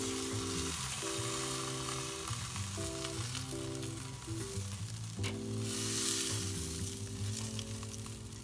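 Bone-in, skin-on chicken breasts sizzling on a kettle grill as they are turned with metal tongs, with a few clicks of the tongs. Background music with sustained chords plays underneath.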